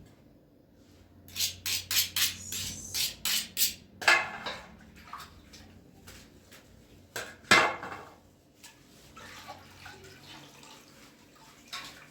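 Dishes and utensils clattering: a quick run of sharp knocks over a couple of seconds, then two short rushing sounds and fainter clinks.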